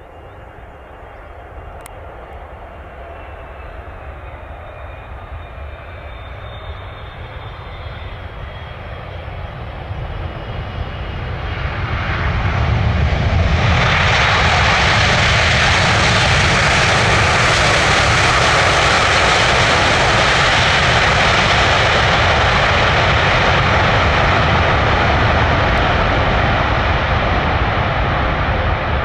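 Boeing 777-300ER jet airliner with twin GE90 engines arriving. A high engine whine over a rising rumble swells over about twelve seconds into a loud, steady jet roar that holds to the end.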